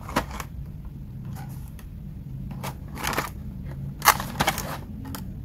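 Stiff plastic blister packaging and its cardboard backing crinkling and crackling as the package is handled and turned over, in irregular bursts, the loudest about four seconds in.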